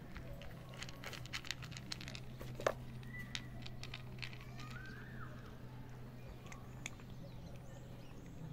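A cat crunching dry kibble: a run of crisp chewing clicks, thickest in the first three seconds and sparser after, over a steady low hum.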